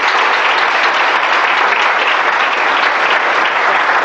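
Conference audience applauding, steady clapping at the end of a talk.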